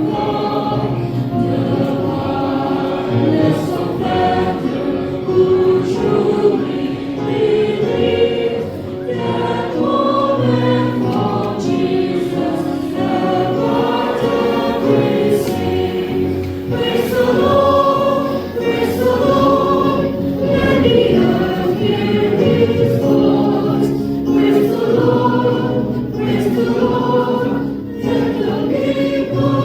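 Choir singing a Christian song in several voices, with long held notes.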